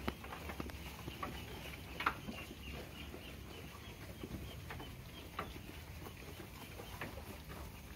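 Sheep tearing and chewing freshly cut grass from a wooden feed trough: irregular crunching clicks, with a sharper one about two seconds in and another a little past five seconds.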